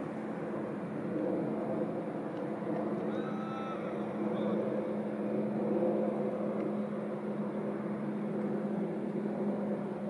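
Steady low engine drone with a constant hum, and a brief high chirp about three seconds in.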